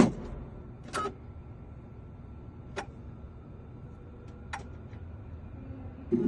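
Three sharp clicks, about two seconds apart, over a faint steady hum, as a key cutting machine is handled and its cutting motor fails to start; the locksmith blames a loose wire inside the machine.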